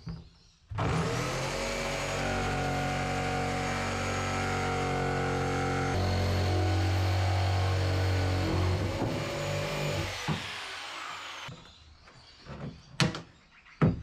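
Corded jigsaw cutting a hatch hole through a boat's floor: the saw starts about a second in, runs steadily with a shift in pitch about halfway as the load changes, and stops after about ten seconds. Two sharp knocks follow near the end.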